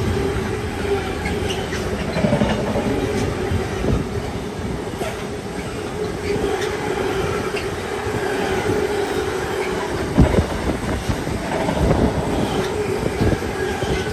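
Container wagons of a long freight train rolling past at speed: a steady rumble of wheels on rail with a steady whine under it, and sharp wheel knocks that come more often in the last few seconds.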